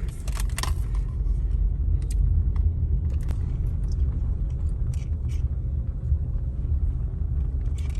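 Low rumble of a car driving over a rough dirt track, heard from inside the cabin, with a few light knocks and rattles.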